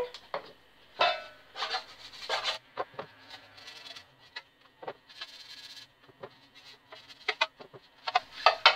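Scraping and rubbing as margarine is scooped from a plastic tub and spread around the inside of a metal loaf tin to grease it, in short irregular strokes with a few light clicks.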